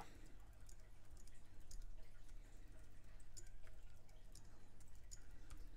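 Computer keyboard typing: faint, irregular key clicks, coming more often in the second half, over a low steady hum.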